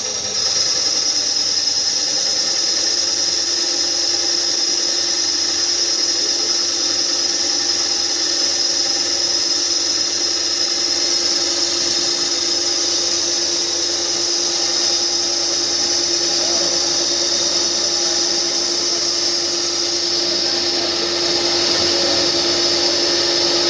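A CNC special-purpose machine for turning, milling, drilling and tapping running, with a steady machining whine and a high tone, a little louder near the end.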